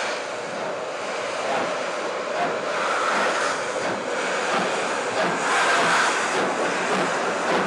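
D52-class 2-8-2 steam locomotive hissing steam from around its cylinders, a steady hiss that swells slightly about five seconds in.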